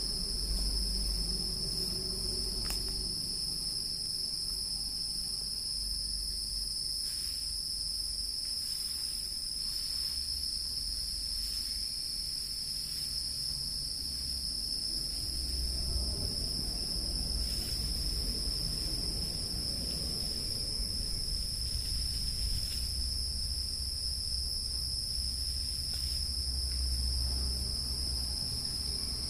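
Insects droning in a steady, unbroken high-pitched chorus, with a low rumble underneath.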